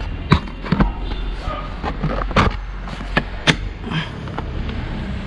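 A series of sharp plastic clicks and knocks, about eight in five seconds, as a length of PVC pipe is handled and pressed onto a motorcycle's front fork tube, over a low steady rumble.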